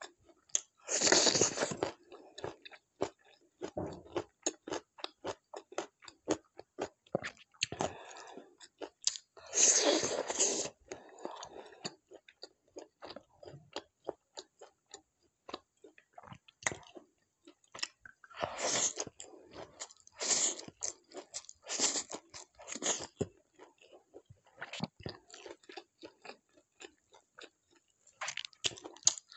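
Close-up eating sounds: steady mouth clicks of chewing, broken several times by louder crunching bites lasting about a second.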